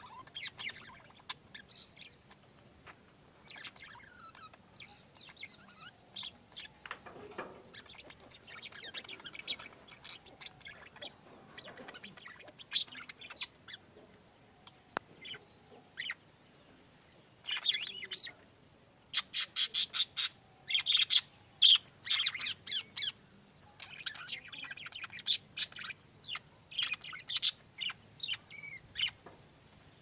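Budgerigars chattering in many short, high chirps, with a louder, denser run of sharp calls about two-thirds of the way through.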